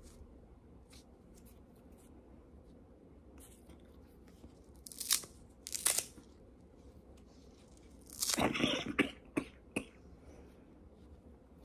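Crinkling, rustling handling noise from a watch band and its packaging: two short bursts about five and six seconds in, then a longer crinkle a little past eight seconds followed by two quick ones.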